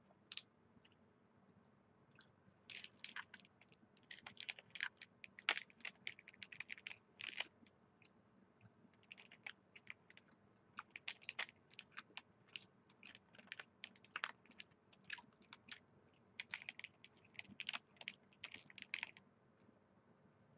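Close-up chewing of a white chocolate almond protein bar: faint, irregular crunching and mouth clicks coming in clusters, with short pauses between.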